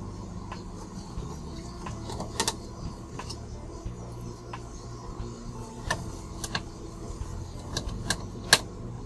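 Irregular sharp clicks and taps of small hard parts being handled during a laptop repair, over a low steady hum. The loudest click comes near the end.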